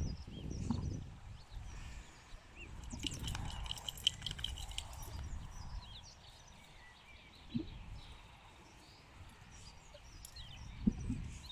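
Horses moving about and playing in a field shelter: low thuds and a few sharp knocks, one about 7.5 s in and a louder one near the end. A bird chirps briefly a few seconds in.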